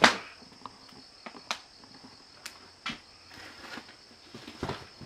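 Irregular footsteps and knocks on the worn wooden floor, the loudest a sharp knock right at the start, over a steady chirring of crickets.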